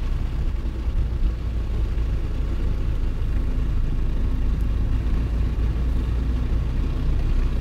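Steady low rumble of a moving car, heard from inside its cabin.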